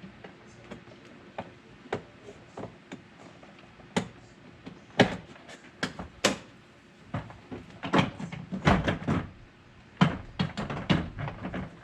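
Irregular clicks, taps and knocks of hand tools and plastic parts being worked apart on a Chevy Silverado door handle assembly, sparse at first, then in louder clusters about a third of the way in and again near the end.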